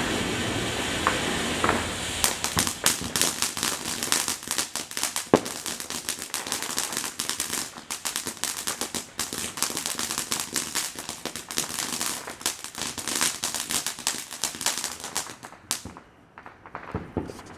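A string of firecrackers going off in a dense, rapid run of sharp pops and cracks for about thirteen seconds, dying away near the end. Before it starts there is a steady hiss.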